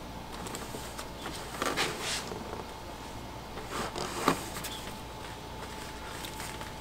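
Faint rustling and a few short, light knocks of hands working a serpentine drive belt onto the pulleys in a 2014 Kia Soul's engine bay, over a steady low hum.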